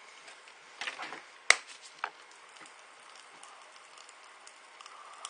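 Popping candy crackling in an open mouth: irregular tiny pops throughout, a flurry about a second in and a few sharper, louder pops, the loudest about a second and a half in.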